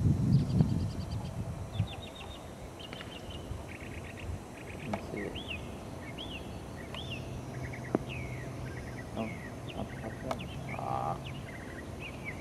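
Several songbirds calling throughout, with short buzzy trills and repeated arching chirps. A low rumble sounds in the first second, and a low steady hum runs through the second half.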